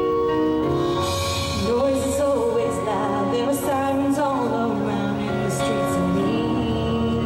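A woman singing live into a microphone over a slow backing track of held chords played through a PA speaker. Her voice comes in about two seconds in and holds wavering notes with vibrato.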